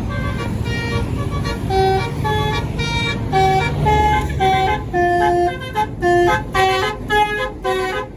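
Bus 'telolet basuri' musical air horn playing a tune of short pitched notes that hop up and down. The notes come quicker and more clipped in the second half.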